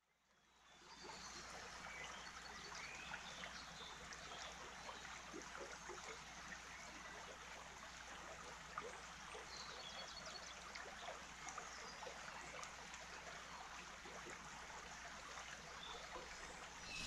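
Shallow river flowing, a faint, steady rush of water that fades in over the first second, with a few brief high chirps of birds.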